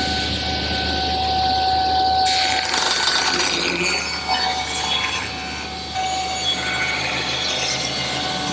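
Table saw running with a steady whine, then about two seconds in ripping the rough edge off a planed pallet board. The cut lays a coarse, rasping noise over the blade's whine.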